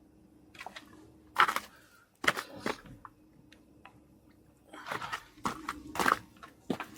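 Irregular knocks and scrapes, about a dozen spread unevenly, the loudest about a second and a half in and again near six seconds, over a faint steady low hum.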